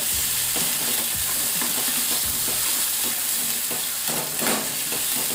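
Chopped tomatoes sizzling in oil in a frying pan on a gas stove while a metal spoon stirs and scrapes the pan, with a louder scrape near the end.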